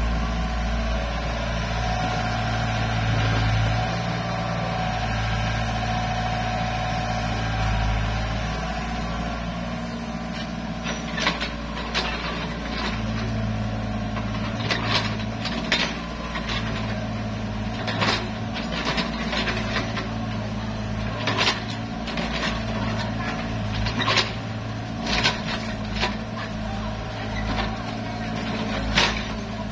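Mini excavator's diesel engine running steadily, its note swelling and easing as the hydraulics take load while it digs. From about a third of the way in, irregular sharp knocks and clanks of the steel bucket working the soil, one every second or two.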